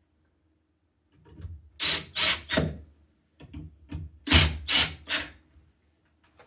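Hand work on door-lock hardware: two runs of short, harsh strokes, four or five in each, about three a second.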